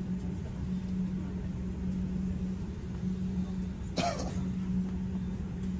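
Inside a tram standing at a stop: a steady low hum over a rumble, with one sharp click about four seconds in.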